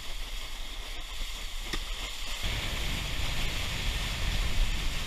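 Water rushing and spraying as wakeboards cut across a lake, with wind buffeting the microphone. The wind is heavier from about halfway through.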